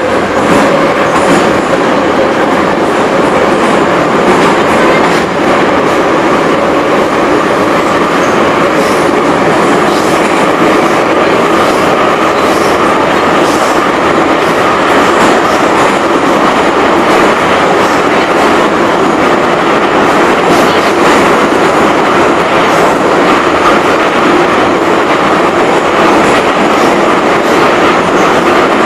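Moscow Metro 81-717/714 "Nomernoy" train heard from inside the car, running at speed through a tunnel: loud, steady wheel and traction-motor noise with scattered clicks from the rails.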